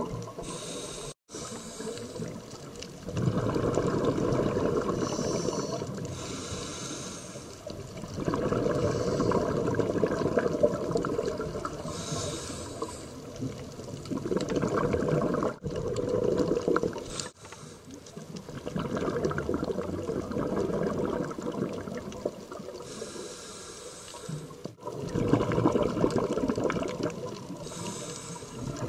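Scuba diver breathing underwater through a regulator: a cycle every five seconds or so of rushing, gurgling exhaled bubbles, alternating with a shorter high hiss of each inhalation.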